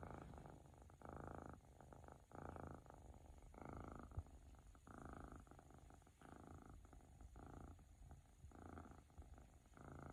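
Siberian kitten purring softly, the purr swelling and fading with each breath about once a second. A single small click about four seconds in.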